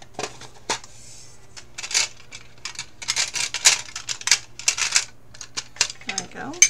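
Metal tin of paintbrushes being handled and rummaged through: a run of clicks, clatters and metallic clanks as brush handles knock against each other and the tin, busiest from about three seconds in.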